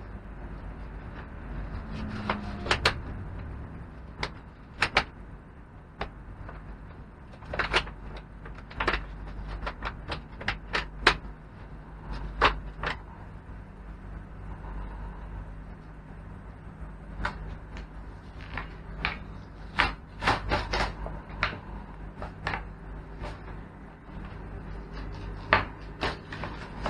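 Stiff clear plastic blister packaging being pried open and pulled away from its card backing: irregular sharp crackles and snaps in clusters, with softer handling rustle between.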